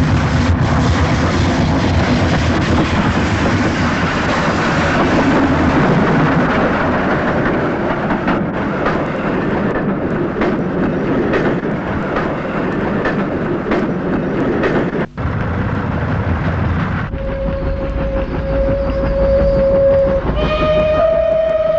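Steam locomotives of a double-headed train pass close by, a dense steady rush of running noise with scattered clicks of wheels over rail joints. After a break about 15 seconds in, a steam whistle sounds one steady note, joined near the end by a louder, richer whistle blast.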